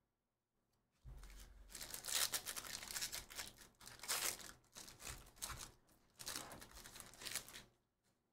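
Foil wrapper of a basketball card hobby pack being torn open and crinkled by hand, starting about a second in with irregular crackling and stopping shortly before the end.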